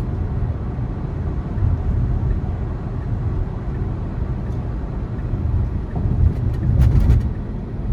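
Steady low road and tyre rumble inside the cabin of a 2020 Tesla Model 3 Performance, an electric car with no engine note, driving along. A short cluster of sharp clicks comes a little before the end.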